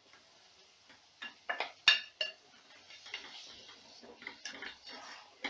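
A spatula stirring minced mutton in a pot, knocking against the pot a few times, loudest about two seconds in, then softer stirring and scraping.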